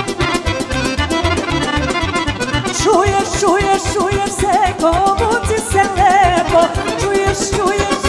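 Live Balkan folk band music: accordion over a steady bass-and-drum beat. About three seconds in, a melody with wide vibrato and ornaments comes in above it.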